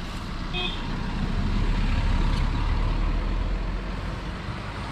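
A motor vehicle passing on the road: engine rumble and road noise swelling to a peak about two seconds in, then easing off.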